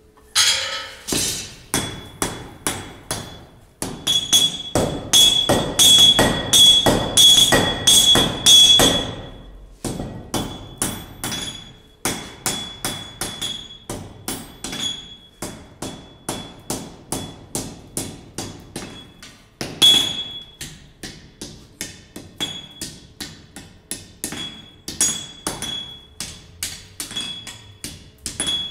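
Blacksmith's hand hammer striking a red-hot iron bar on an anvil, a steady run of blows about three a second, each with a bright metallic ring. The heaviest blows come in a cluster from about four to nine seconds in, with one more hard blow near twenty seconds.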